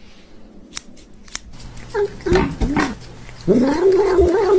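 A few scissor snips near the start, then a cat making wavering calls that end in one long, loud drawn-out call in the last second. It is the impatient 'hangry' noise of a cat eating a lickable treat.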